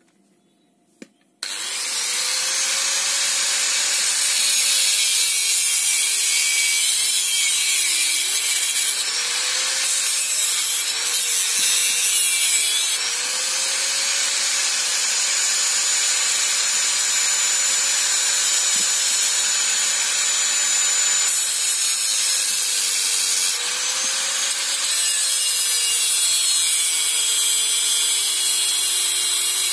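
Electric angle grinder switched on about a second and a half in and run steadily, its disc grinding into a small metal part. The motor's hum sags in pitch and recovers several times as the disc bites under load.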